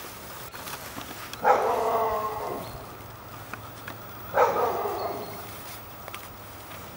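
Mixed-breed dog barking twice, about three seconds apart, each bark starting sharply and trailing off over about a second.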